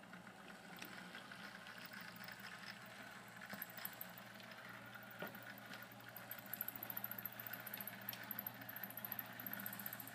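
HO-scale model train running on the layout: a faint steady motor hum with the whir and rattle of the moving train, the rattling growing faster and busier from about six seconds in.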